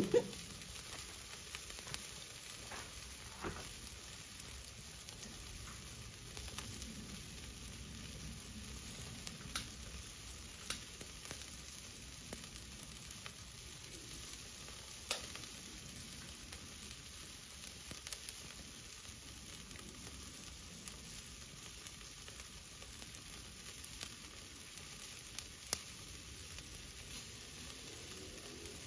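Chicken drumsticks sizzling on a charcoal grill grate over hot coals: a steady faint hiss with occasional small pops.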